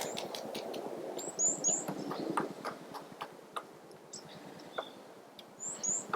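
Short, high bird call notes with a falling pitch: three in quick succession about a second in and two more near the end. Scattered soft taps and clicks run between them.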